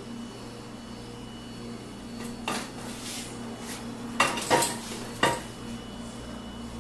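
Dishes and cutlery clinking and knocking together, with a few sharp clatters between about two and five and a half seconds in, over a steady low hum.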